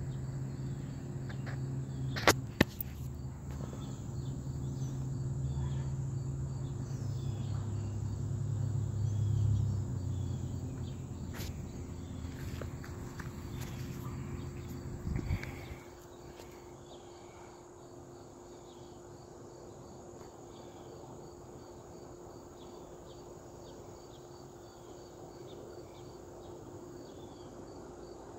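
Steady outdoor insect chorus, a continuous high-pitched trill with faint repeated chirps. Under it, a low hum stops about halfway through, and a few sharp clicks come early on.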